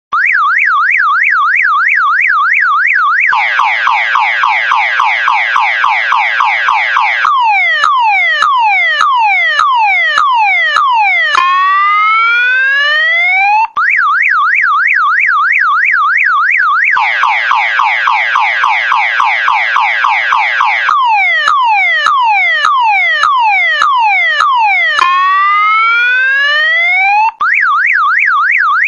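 Electronic car alarm siren cycling through its tones: a fast warble, a rapid falling buzz, a run of falling 'shot' sweeps about two a second, then one long rising whoop. The sequence cuts out briefly about 14 seconds in and starts over.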